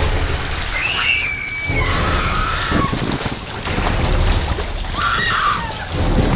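Horror-film soundtrack: a deep, steady low rumble with two shrill cries that glide in pitch and then hold, one about a second in and another about five seconds in.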